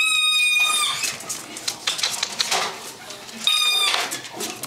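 Rubber squeak toy squeezed by English bulldog puppies: a long, steady, high squeak at the start and a shorter one about three and a half seconds in, with soft rustling and snuffling between.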